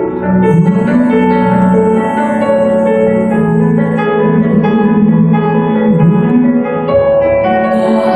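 Instrumental music with harp-like plucked notes and keyboard, moving from note to note.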